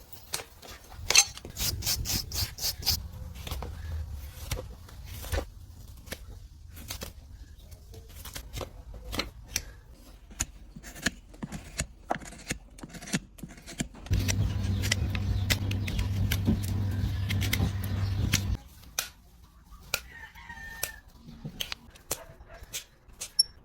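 Hoof trimming: a long series of short scraping and clicking strokes as a horse's hoof is cut and cleaned. A low steady hum runs for a few seconds past the middle, and a bird calls briefly near the end.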